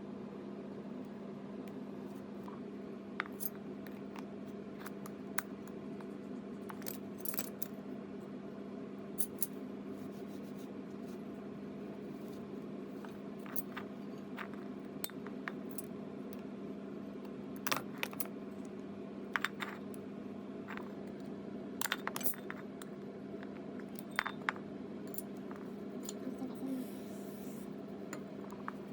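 Small metal parts clinking and tapping against each other in scattered sharp clicks, some in quick little clusters, over a steady low hum.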